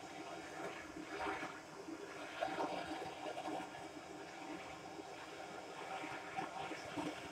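Steady rushing noise with irregular crackling, typical of a torch flame heating a 50cc exhaust pipe to burn off the carbon inside.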